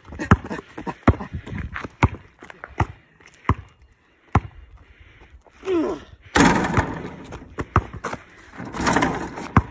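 A basketball bouncing on asphalt, dribbled in sharp single thuds about every 0.7 seconds for the first four seconds or so. Later come a short falling vocal sound and two spells of loud rushing noise.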